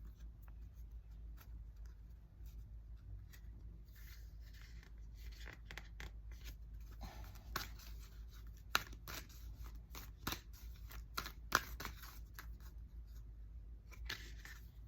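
Tarot cards being shuffled and handled: soft rustling with scattered clicks and snaps, busier in the second half, over a low steady hum.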